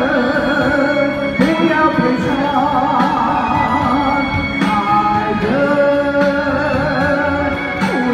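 A woman singing a Chinese ballad into a handheld microphone over an instrumental backing track, holding long notes with vibrato.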